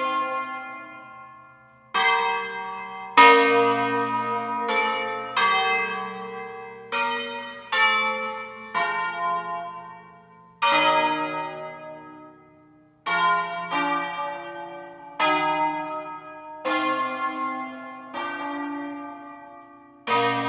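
An eight-bell ring in B♭ (Fratelli Barigozzi, 1894), hung on wheels, ringing a solemn concerto. The bells strike one at a time, about one stroke every second or two at an uneven pace, in a melodic sequence, and each stroke rings on and overlaps the next.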